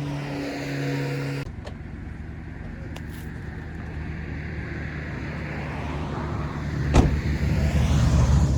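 Car driving: steady engine and road rumble that grows louder toward the end, with a sharp knock about seven seconds in.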